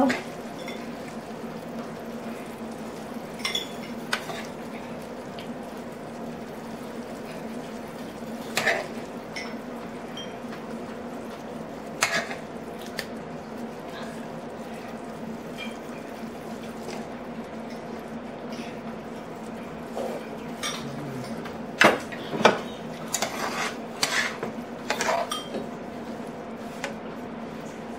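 Metal spoon clinking and scraping against a pan and serving dish while the pork steak and its sauce are served: a few scattered clinks, then a quick run of them about twenty seconds in. A steady low hum runs underneath.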